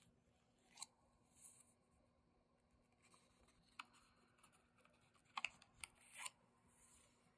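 Journal pages being turned and handled by hand: faint paper rustles and short flicks, with a cluster of them about five to six seconds in.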